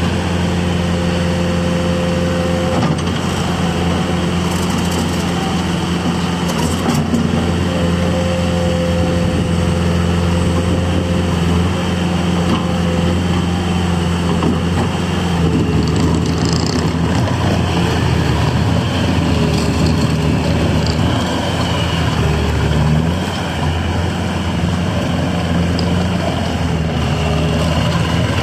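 Diesel engine of a 2015 Bobcat T550 loader running steadily, with its pitch shifting slightly now and then in the second half.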